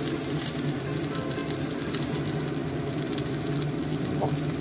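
Shrimp-stuffed tofu pieces shallow-frying in a little oil in a pan, sizzling steadily with small scattered crackles as they crisp.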